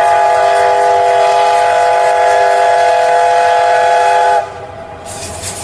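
A train whistle sounding one long, steady chord of several tones, which cuts off suddenly about four seconds in. Near the end, quieter scrubbing begins as the muddy toy is brushed.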